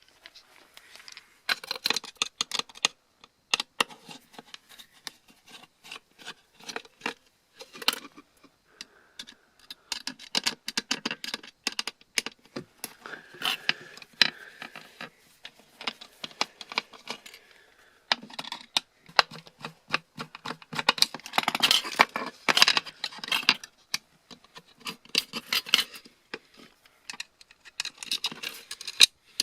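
Irregular clicks, taps and scrapes of small metal parts being handled as a laptop hard drive is taken apart by hand.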